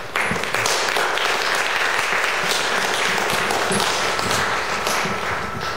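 Audience applauding: many hands clapping at once in a dense, even patter that eases a little near the end.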